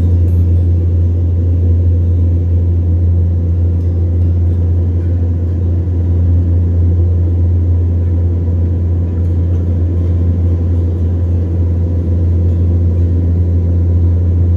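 Boat engine running with a steady, unchanging low drone.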